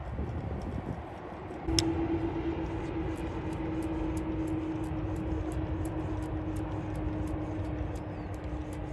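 A steady motor hum switches on with a click about two seconds in and holds, sinking slightly in pitch, over a constant low rumble.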